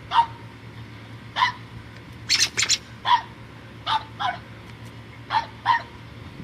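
Dog barking in short, sharp yaps, about eight of them spaced roughly half a second to a second apart. A few sharp clicks come about two and a half seconds in.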